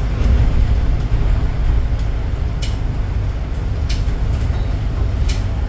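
Inside a moving city bus: steady low rumble of the engine and road, with a few sharp rattles or clicks from the cabin.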